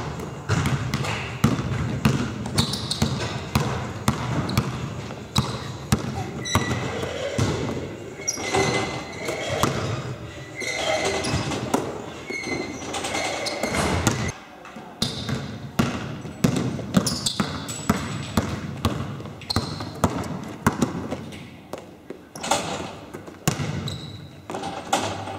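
A basketball being dribbled and bounced on a hardwood sports-hall floor, a quick run of sharp bounces echoing around a large hall, with short high squeaks of sneakers on the floor.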